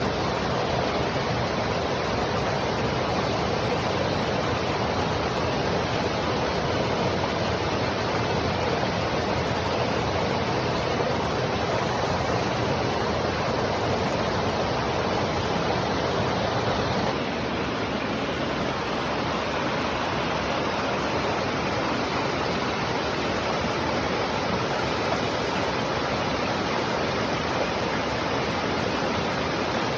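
Water flowing and rushing in a steady, unbroken hiss, dropping slightly in level a little past halfway.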